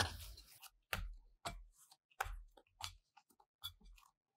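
Soft yeast dough being kneaded and rounded by hand against a glass bowl: a run of irregular soft thumps and squishes, about two a second, thinning out and growing fainter near the end.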